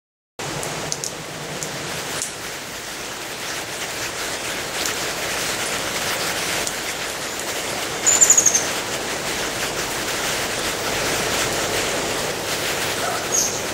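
A steady hiss, with a short run of sharp high chirps from a Geoffroy's tamarin about eight seconds in, the loudest sound, and a few fainter chirps near the end.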